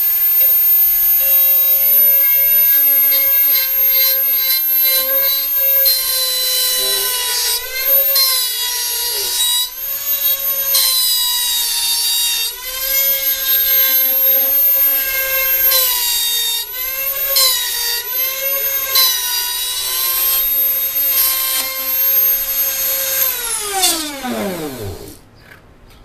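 Dremel rotary tool in a router base running at high speed, its whine sagging in pitch several times as the bit cuts into the ukulele soundboard wood. About 24 seconds in it is switched off and winds down with a falling whine.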